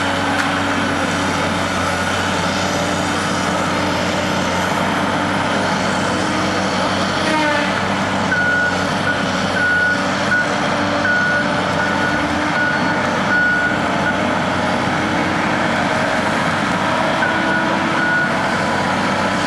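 Heavy diesel vehicle engine running steadily, with its reversing alarm sounding a string of evenly spaced beeps about halfway through and twice more near the end.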